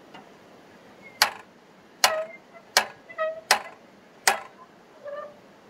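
Ratchet height adjuster on a Logosol F2 chainsaw mill clicking five times, about one click every three-quarters of a second, each a sharp metallic click with a short ring. Each click is a quarter-inch step, five in all to set the cut for a 1-inch board.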